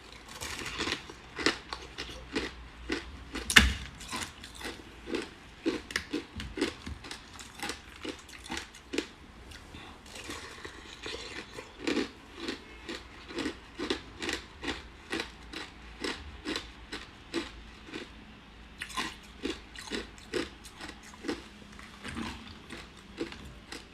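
Ice being bitten and chewed close to the microphone, a steady run of sharp crunches about two to three a second, with one loud crunch about three and a half seconds in.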